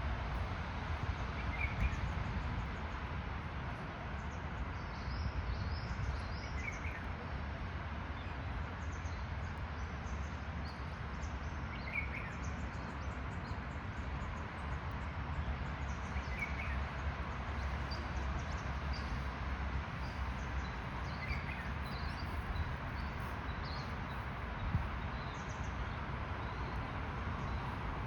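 Outdoor ambience with a steady low rumble, a bird giving a short chirp about every five seconds, and fainter higher chirps in between.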